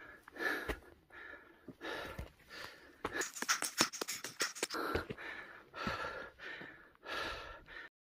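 A hiker breathing hard while climbing, with short panting breaths one after another and the crunch and click of footsteps on dry leaves and stones. The sound cuts off suddenly near the end.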